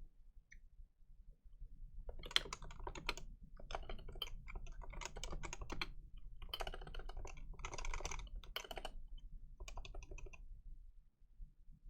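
Typing on a computer keyboard: keys clicking in quick irregular runs with short pauses, starting about two seconds in.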